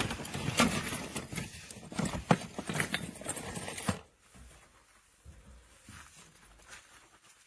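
Hands rummaging through a cardboard box of Christmas baubles: quick clicking and rustling as the ornaments knock against each other and the cardboard. About four seconds in it stops abruptly, leaving only faint rustling and a few soft thumps.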